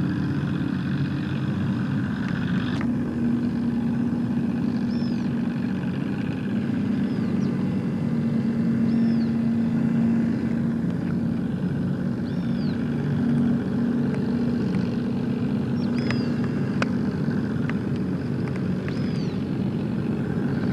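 An engine running steadily, with a constant low hum. Short high chirps recur every few seconds over it.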